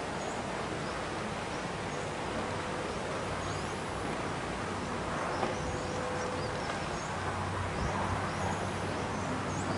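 Steady outdoor background hiss with faint, scattered, high-pitched chirps, during a held silent stretch.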